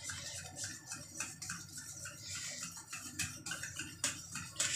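A spoon stirring sugar into curd in a steel bowl: a run of light clicks and scrapes of the spoon against the metal.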